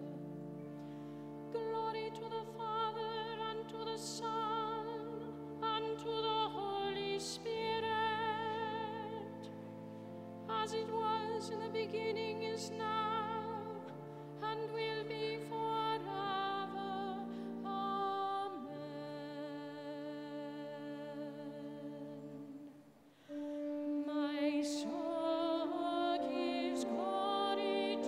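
Sacred music: a solo voice sings a slow melody with strong vibrato over long held accompanying chords. There is a short pause between phrases near the end.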